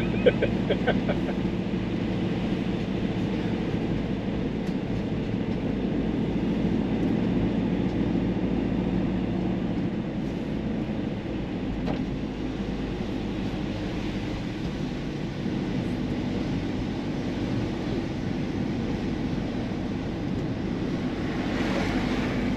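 Car driving along a road, heard from inside the cabin: a steady engine hum with tyre and road noise.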